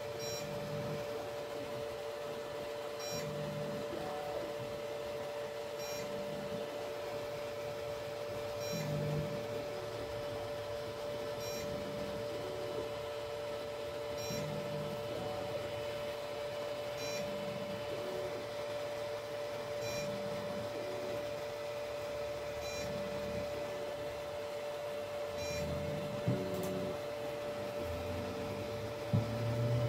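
Tronxy XY2 Pro 3D printer running its auto bed-leveling routine: a steady hum from its fans and stepper motors. About every three seconds there is a short burst of motor movement with a brief high tick, as the probe steps from point to point across the bed. A few louder knocks come near the end as the routine finishes.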